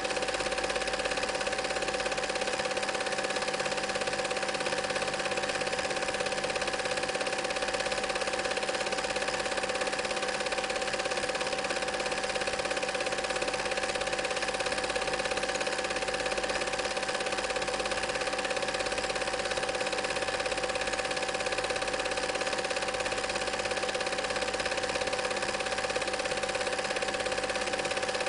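Film projector running: a steady mechanical clatter from the film-advance mechanism, with a constant whining tone over it.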